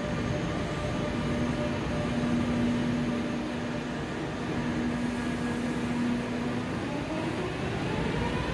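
Electric train in a station: a steady rumble with a low, even hum, then about seven seconds in a whine of several tones starts rising in pitch as its traction motors speed up.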